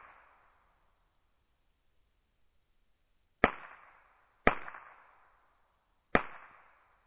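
AR-15-style rifle firing three single shots: about three and a half seconds in, a second later, and near the end. Each crack trails off in a short echo. At the start the echo of a shot fired just before is still fading out.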